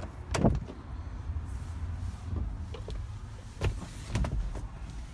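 Footsteps and the knocks and clunks of a truck's cab door as someone climbs into the cab, over a steady low rumble. The loudest knock comes about half a second in, and a few more follow near the end.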